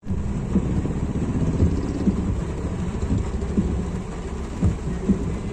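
Rain and car traffic on a waterlogged road, heard as a steady low rumble with soft irregular thumps about every half second.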